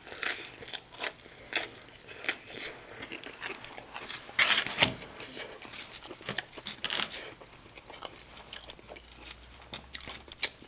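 A person chewing and biting crunchy food close to the microphone, likely pizza crust, with irregular crunches and mouth clicks, the loudest about four and a half seconds in.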